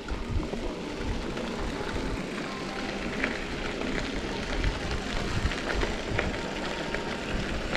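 Wind rumbling on the microphone and bicycle tyres rolling on a packed dirt trail while riding an e-bike, with a few light clicks.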